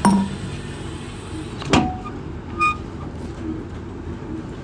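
Knocks and clunks of an empty milk bottle and its lid being taken from a vending machine, over a steady low machine hum. The loudest knock comes right at the start, another a little under two seconds in, and a lighter one with a short ring about half a second later.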